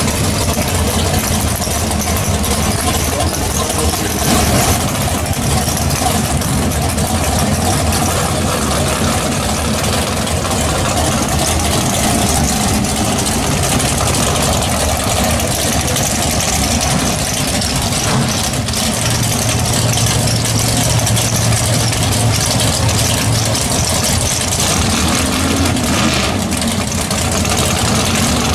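Engine of a first-generation Chevrolet Camaro drag car idling loudly and steadily as the car creeps forward.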